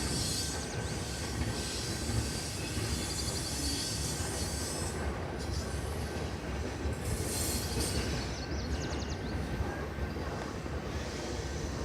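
CN freight train rolling past, a steady low rumble from the cars and wheels on the rails, with high-pitched wheel squeal and hiss that comes and goes.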